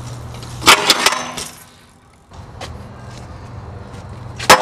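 BMX bike tyres rolling on concrete, then a loud metallic bang with a brief clatter and ringing as the bike hits the handrail stair set, about a second in. The rolling starts again after a short lull and ends in a second bang near the end.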